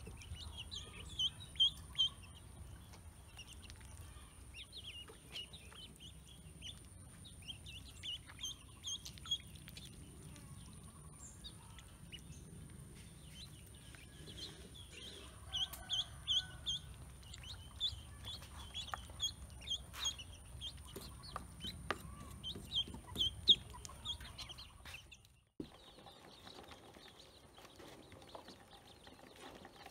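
Ducklings and a chick peeping: short, high-pitched chirps in quick runs, thinning out near the end.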